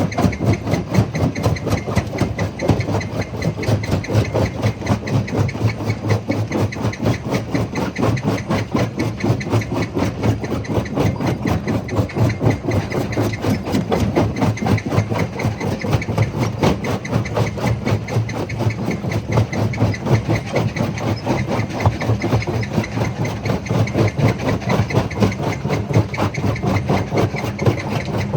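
Stone jaw crusher running steadily: a continuous heavy mechanical rumble with a fast, even pulsing of several beats a second.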